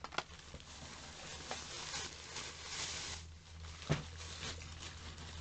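Rustling of plastic cosmetic packaging being handled, loudest in the middle, with a couple of light clicks.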